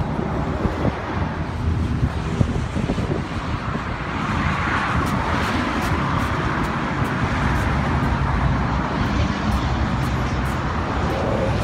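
Street traffic noise: a steady low rumble that grows a little louder about four seconds in.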